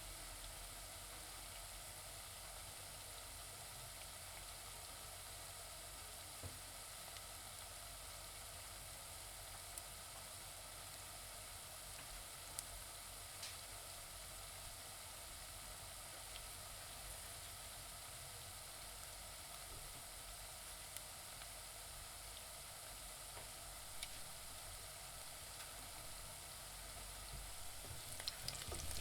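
Onions frying in a pan: a steady sizzle with an occasional sharp pop, turning louder and more crackly near the end.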